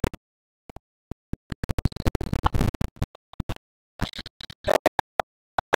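Scraping and rustling on a body-worn microphone, broken into short choppy fragments with the audio dropping out completely between them.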